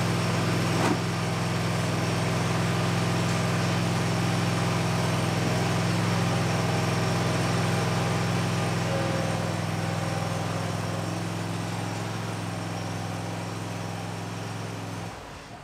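Bad Boy Maverick zero-turn mower's engine running steadily as the mower is driven up onto ramps, cutting off near the end. A single knock about a second in.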